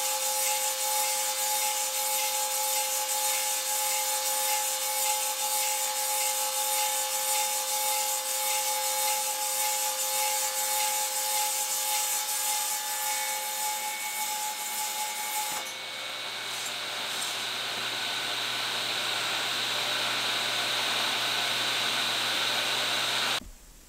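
Table saw blade cutting a square-shoulder tenon on a turned wooden part as a Tenonizer tenon cutter rotates the part against the blade: a steady sawing, rubbing sound with two steady tones. About two thirds in, the sound changes to a steadier hiss with a low hum, then cuts off abruptly near the end.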